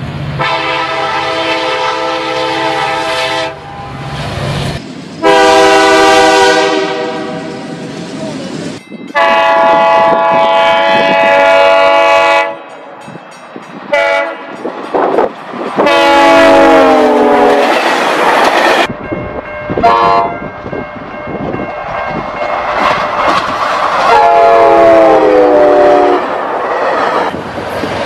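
A series of different train air horns sounding one after another, each a chord of several notes: some blasts are held about three seconds, others are short toots. Two of them drop in pitch as the train passes, and the noise of the moving train fills the gaps between blasts.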